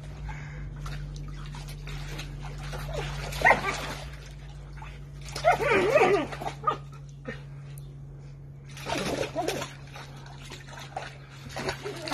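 A dog yipping and whining excitedly in three short bursts while splashing about in a paddling pool full of foamy water, over a steady low hum.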